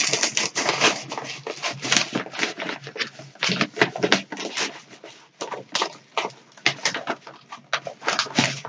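Irregular crinkling and rustling of blind-bag packets being handled by hand while someone feels through them to pick some out.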